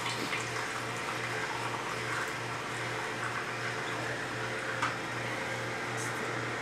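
Vertical slow juicer running while carrot pieces are pushed down its feed chute: a steady low motor hum that pulses about three times a second, with faint crackling as the carrot is crushed.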